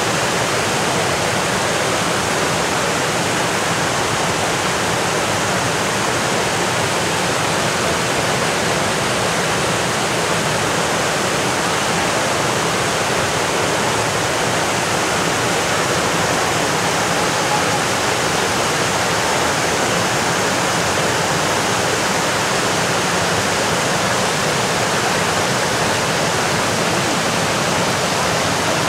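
Roaring River white water cascading over boulders: a steady, unbroken rush of falling and splashing water.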